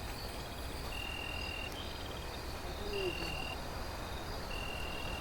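Insects calling: a high, steady buzzing note lasting under a second repeats about every two seconds, with faster pulsed trills in between, over a steady background hiss.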